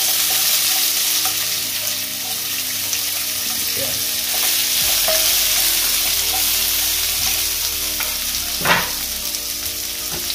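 Sliced onions, green chillies and curry leaves sizzling steadily in hot oil in a non-stick kadai over a tempering of mustard seeds, urad dal and jeera, stirred with a wooden spatula, with one sharper scrape near the end.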